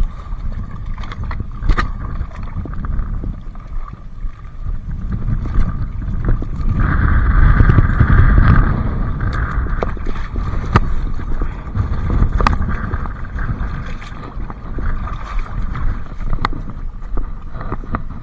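Sea water splashing and lapping at a rocky shoreline, swelling louder about seven seconds in, with wind rumbling on the microphone and scattered sharp clicks from handling.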